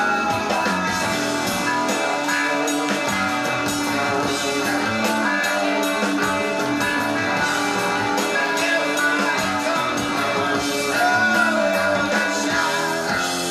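Live 1970s rock recording played from a vinyl LP: a guitar-led band with bass and drums playing at a steady level.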